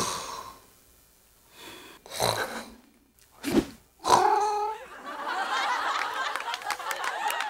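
A few short, separate non-speech vocal sounds, snort- or grunt-like, then a denser stretch of laughing from about five seconds in.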